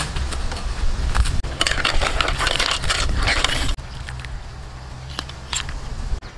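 Cleaver chopping crusty toasted bread on a wooden board, the crust crunching and crackling for nearly four seconds. It stops abruptly and gives way to a quieter stretch with a few light clicks.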